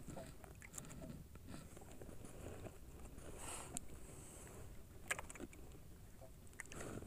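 Quiet small-boat handling sounds: scattered light clicks and knocks of gear against the deck and hull, with a brief rustle about three and a half seconds in and a sharper click about five seconds in.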